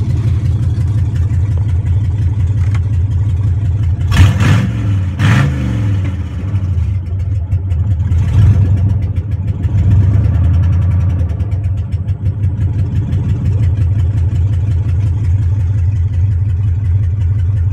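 A GM pickup's LS V8 idling loud with no catalytic converters in the exhaust. The throttle is blipped twice about four and five seconds in, and the engine swells up again around eight to ten seconds in.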